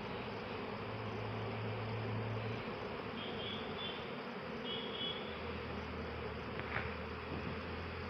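Many honey bees buzzing around their wooden hives, a steady dense drone that shifts a little in pitch. Two short high chirps sound in the middle, and a single click comes near the end.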